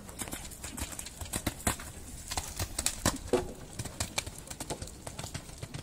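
Horse's hoofbeats cantering on a sand arena: a run of uneven thuds, loudest in the middle as the horse passes close.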